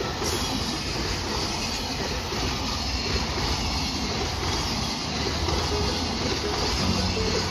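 Train running past on the rails, a steady loud rush and rumble of wheels on track.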